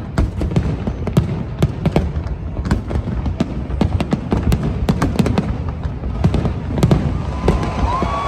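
Fireworks display: a dense, irregular run of sharp bangs and crackles over a continuous low rumble.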